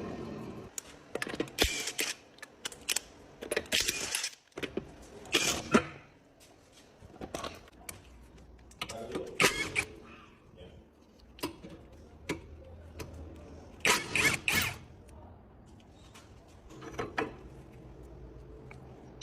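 Irregular metallic clanks, clicks and scrapes of hand tools and metal parts being handled during wheel hub bearing work, in short clusters with quieter gaps between.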